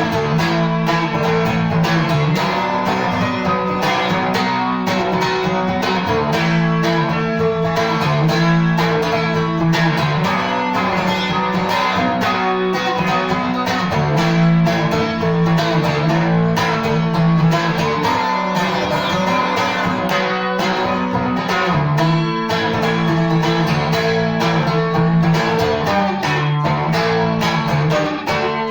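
Seagull Merlin M4 four-string fretted dulcimer played solo: a picked melody over a repeating pattern of bass notes.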